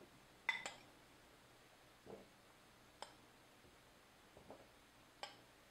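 A few light clinks of a metal spoon against a glass bowl and glasses as sliced strawberries are spooned out: a quick pair about half a second in, then single clicks about three seconds in and near the end, with a couple of softer, duller knocks between and near silence otherwise.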